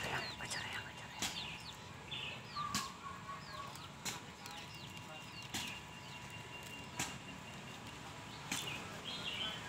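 Chicks peeping in short, high, falling chirps, over sharp clicks about every one and a half seconds while a rooster pecks grain from an open hand.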